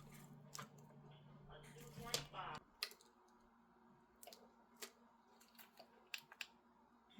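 Faint scattered clicks and taps of small parts being handled, over a low steady hum that stops about two and a half seconds in.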